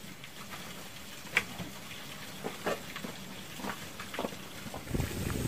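Scattered light clicks and taps over a faint steady hiss, with a low rumble coming in near the end.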